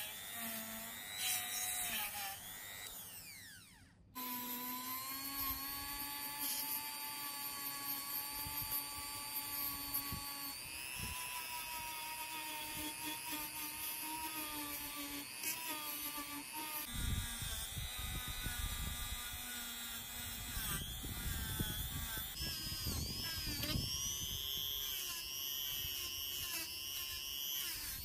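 Small electric rotary tool running at high speed, a steady whine, with a brass wire brush wheel scrubbing rust and dirt off the metal tuner can and parts of an old TV circuit board. The sound drops out briefly about four seconds in, and the whine's pitch shifts a few times. From about seventeen seconds a rough scraping of the brush on metal gets louder.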